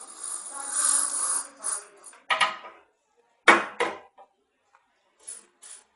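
Aerosol air freshener spraying: one long hiss of about a second and a half, then several short spurts, mostly in quick pairs.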